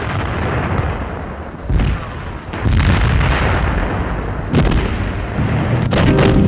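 Battle sounds of artillery and gunfire: a continuous low rumble broken by several heavy, sharp reports.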